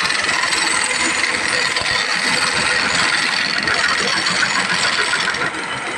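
A machine running steadily, with a light rattle.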